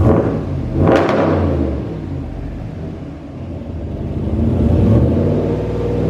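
Straight-piped 5.7-litre Hemi V8 of a Ram 1500, its muffler and resonators deleted, being revved during a cold start: two quick blips in the first second, falling back to idle, then the revs building again about four seconds in.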